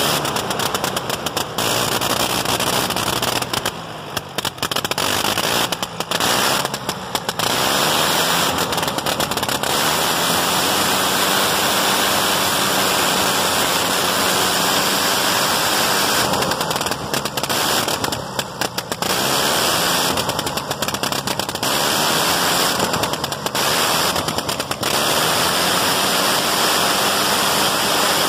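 1918 Gnome nine-cylinder rotary aircraft engine running on a test stand with its propeller turning, a rapid crackling exhaust. Several times its speed falls off briefly and picks back up.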